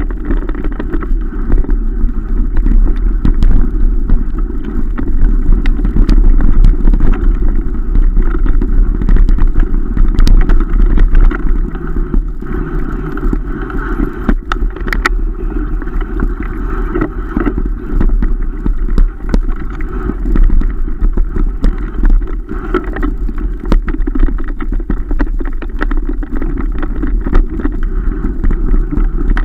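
Wind buffeting the microphone of a camera riding on a mountain bike at speed, mixed with the rolling rumble of tyres on a dirt forest track and frequent small rattles and knocks from the bike over bumps and stones.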